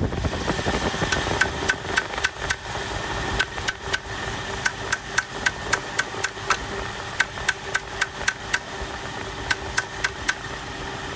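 Lexus GS 300 engine idling roughly while a tool taps repeatedly on a sticking solenoid, with irregular runs of sharp, ringing metallic taps about two to three a second that stop near the end. The rough idle comes from the solenoid sticking.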